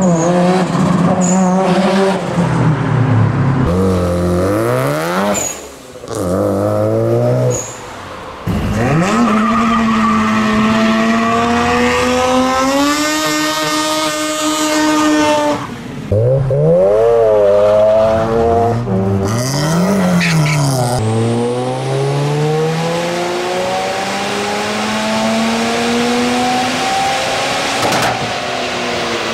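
Mazda rotary engines revving hard in a run of short clips, their pitch climbing and dropping again and again. In the middle a burnout sets the tyres squealing over the engine. Near the end one engine climbs steadily in revs in a single long pull on a dyno.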